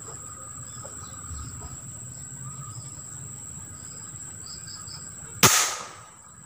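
A single rifle shot about five and a half seconds in, sharp and loud, fading over about half a second, over a steady high-pitched insect drone.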